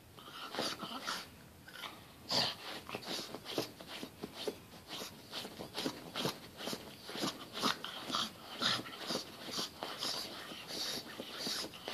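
A pug snorting and snuffling in quick, uneven bursts, several a second, while it noses and paws at a fabric cushion.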